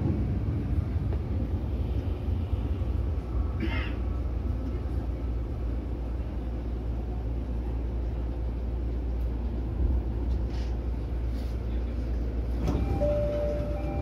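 JR East E231-series electric train running along the track, heard from the driver's cab as a steady low rumble of wheels and running gear. There is a short squeal about four seconds in, and a steady whine sets in near the end.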